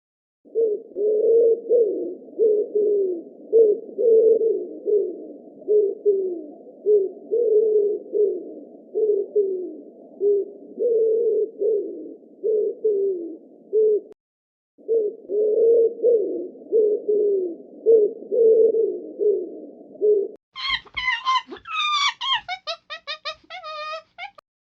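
Low cooing bird calls, repeated many times in quick succession with a short break partway through. Near the end a different, higher-pitched series of rapid calls takes over.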